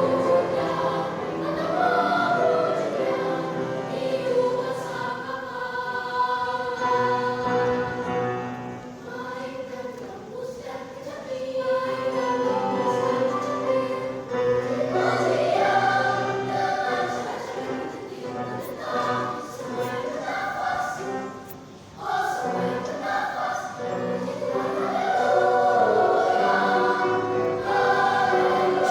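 Children's church choir singing a sacred song, with a brief drop in level about three-quarters of the way through before the singing picks up again.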